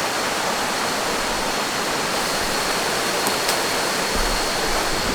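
Small jungle waterfall rushing steadily.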